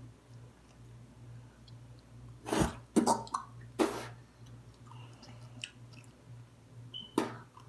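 A child coughing and gagging in four short, harsh bursts, three close together about two and a half seconds in and one near the end, as she reacts to a mouthful of garlic dipping sauce.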